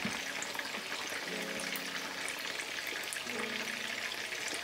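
Salmon sizzling in a frying pan over low heat, a steady frying hiss with faint crackles as squeezed lemon juice cooks in.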